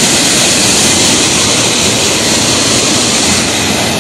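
Waterfall pouring into its plunge pool: a loud, steady rush of falling water, easing slightly near the end.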